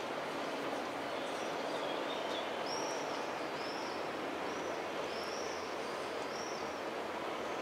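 Steady rolling noise of a Z 55500 double-deck electric train passing while being towed, so only its wheels on the rails are heard and no traction motors. A bird calls over it in a short series of about five high chirps in the middle.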